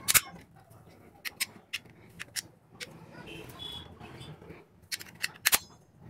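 Irregular sharp clicks of keys being pressed on a computer keyboard as a serial number is typed in, about a dozen in all. The loudest click comes right at the start and another about five and a half seconds in.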